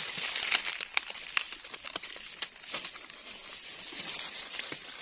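Dry leaf litter crackling and rustling in irregular snaps as hands push through it on the forest floor to pick mushrooms.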